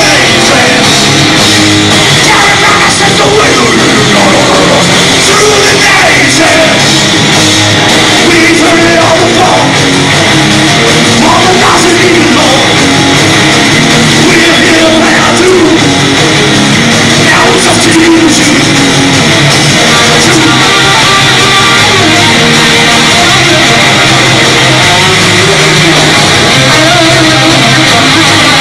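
Live doom metal band playing a song at full volume: distorted electric guitar, bass and drums, with singing at the microphone. The sound is loud and unbroken throughout.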